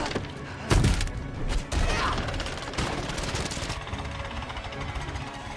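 Fight sound effects on a wooden rope bridge: two heavy impacts, about a second in and again near two seconds, then a long run of fast clattering and creaking as the planks and ropes break apart.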